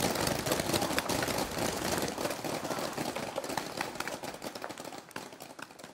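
Paintball markers firing rapid, overlapping pops, thinning out and getting quieter toward the end.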